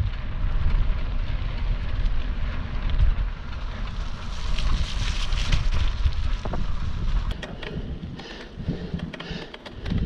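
Wind buffeting the microphone over the rolling noise of a mountain bike's knobby tyres on a dirt track at speed, with a few sharp rattles and knocks from the bike.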